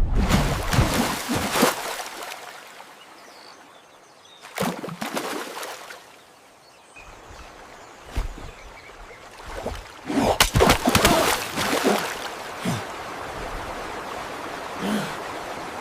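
Water splashing and sloshing in several loud surges, about 4.5 s in and again around 10 to 12 s, over a steady sound of running water.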